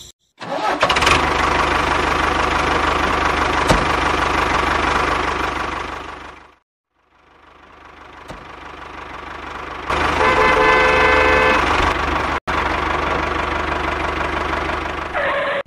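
Tractor engine sound running steadily with a low rumble. It fades out and stops about six and a half seconds in, then builds back up. A horn-like beep sounds for about a second and a half about ten seconds in.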